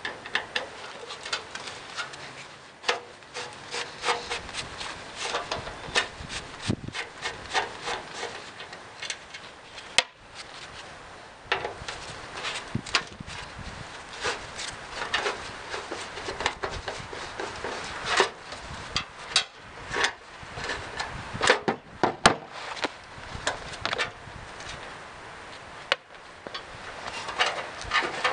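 Screwdriver backing out the screws that hold the door latch mechanism to a 1967 Ford Mustang's bare steel door shell: irregular scraping and rubbing with many small sharp clicks and knocks of metal.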